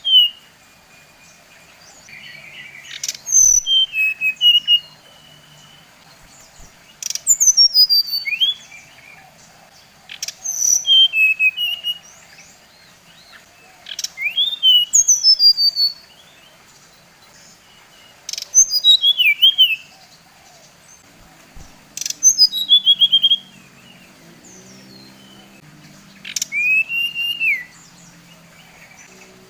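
Brown-chested jungle flycatcher (SRDC) singing: short phrases of quick falling and rising whistled notes, repeated every three to four seconds, each opening with a sharp click.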